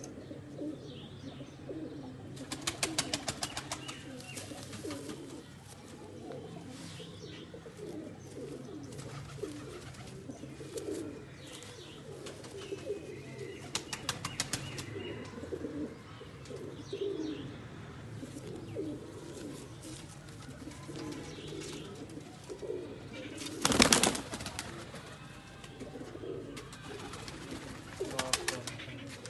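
Pigeons cooing over and over, low and continual, with a few runs of rapid clicks and one sudden loud burst about 24 seconds in.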